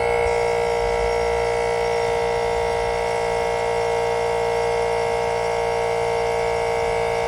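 Air train horn held in one long, steady blast, a chord of several notes sounding together without change in pitch.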